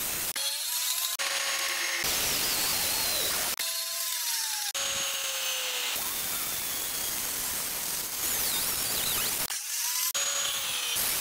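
Angle grinder grinding a 5160 leaf-spring steel knife blade, the abrasive disc hissing against the steel. The motor's whine sags in pitch under load and recovers. The sound breaks off and starts again abruptly several times.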